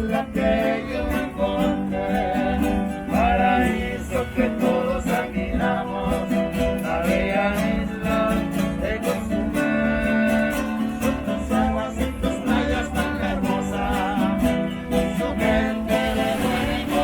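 Mariachi band playing live: acoustic guitars strummed with a voice singing over them.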